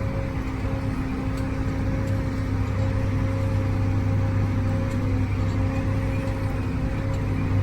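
Harvesting machinery running steadily: a deep engine drone with a steady whine above it.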